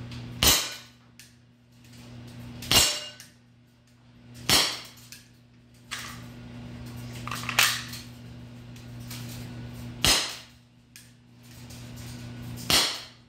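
CO2-powered Grand Power K100 non-blowback airsoft pistol firing six shots, each a sharp pop, two to three seconds apart. A steady low hum runs underneath.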